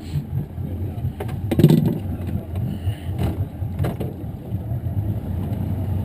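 Boat's outboard motor running steadily, with a few knocks and one louder thump a little under two seconds in.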